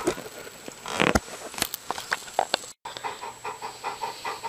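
Handling noise with a few sharp clicks and knocks, the loudest about a second in. After a brief dropout just under three seconds in, a dog pants rapidly and evenly, about five breaths a second.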